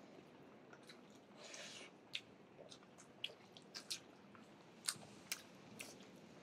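Quiet eating by hand: chewing and biting, with scattered sharp clicks and a short soft rustle about one and a half seconds in, as rice is mixed and eaten from a steel plate.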